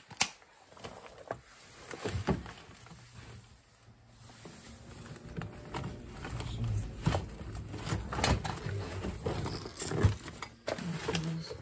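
Rummaging through a cluttered cupboard shelf: papers and folders rustling and shifting, with many scattered knocks and clicks as objects are moved about.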